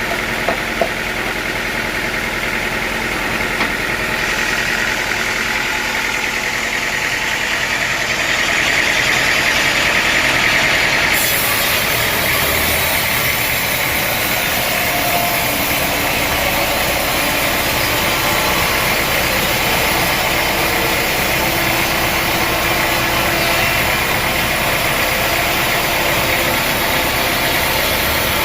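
Sawmill saw running through a teak log, a steady mechanical whir and hiss with a few light clicks near the start. The high hiss grows louder about four seconds in and again sharply about eleven seconds in.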